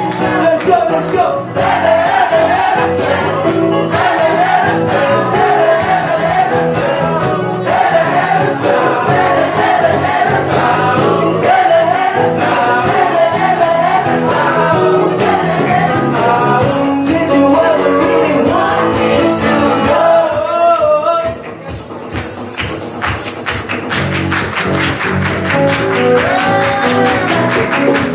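Full band playing live unplugged: drums, bass, guitar and keyboards under a wavering lead melody. About twenty-one seconds in the music drops in level to a sparser passage driven by a fast, steady high rhythm.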